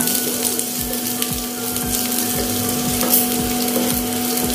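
Cashew pieces, curry leaves and green chilies frying in a little oil in a nonstick wok, sizzling steadily while a wooden spatula stirs them, its strokes against the pan coming a few times a second. A steady hum runs underneath.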